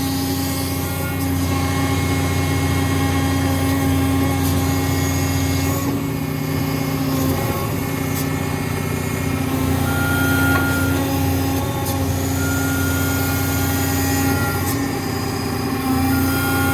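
Diesel engine of a Develon tracked excavator idling steadily, with a slight dip and recovery in its note about halfway through.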